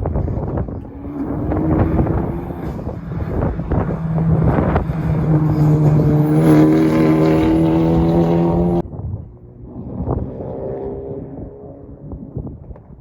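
Car engines running and revving, the pitch climbing slightly over several seconds. The sound cuts off abruptly about nine seconds in and gives way to a quieter engine sound.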